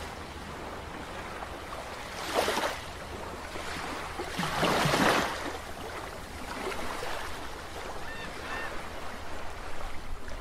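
Sea surf on a beach: a steady wash of water with two louder swells of breaking waves, about two seconds in and around five seconds in.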